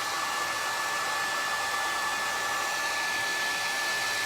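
A hair dryer blowing steadily, with a constant high whine from its motor.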